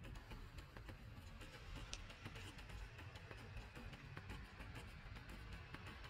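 Faint background music, with light ticking throughout and a brief high chirp about two seconds in.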